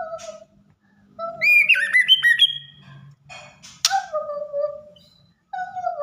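Young white-rumped shama singing: clear whistled phrases with sliding notes, a fast run of warbled notes about a second in, and a harsh rasping note near four seconds.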